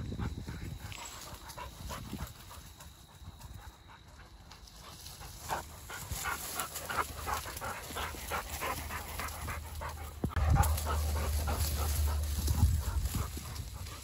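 Hunting dog panting hard close to the microphone in quick, rhythmic breaths, worn out from running in the heat. About ten seconds in, a low wind rumble on the microphone sets in suddenly and becomes the loudest sound.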